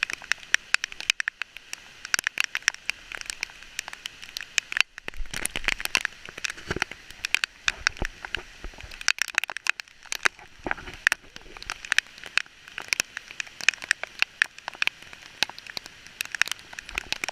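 Heavy rain, with drops striking close to the microphone as dense, irregular sharp ticks over a steady hiss.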